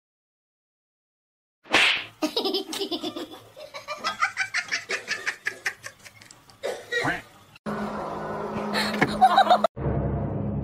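Hearty laughter in quick repeated bursts, starting about two seconds in and running for several seconds, then a different sound with a steady low hum under it near the end.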